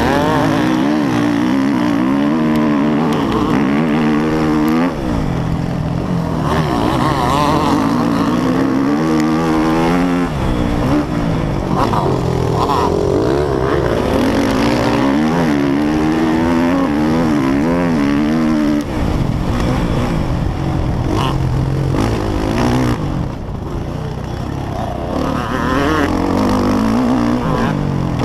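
Motocross bike engine revving hard and continuously, its pitch rising and falling again and again as the rider accelerates, shifts and rolls off for turns, heard close up from a helmet camera.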